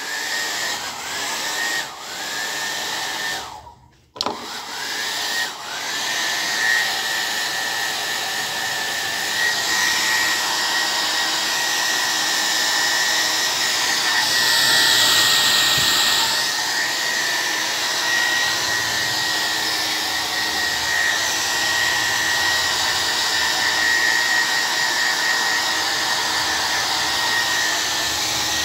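Handheld blow dryer running. In the first six seconds it is switched off and on several times, its motor whine rising each time it spins back up. It then runs steadily as a high whine over rushing air, louder for a couple of seconds around the middle.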